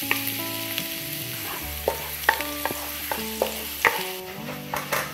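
Minced garlic sizzling in hot oil in a wok, with a steady hiss. A wooden spatula stirs it, knocking sharply against the pan several times.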